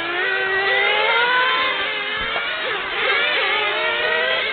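Several radio-controlled cars' small nitro engines running around the track, their high-pitched whines overlapping and rising and falling in pitch as the cars accelerate and slow for the corners.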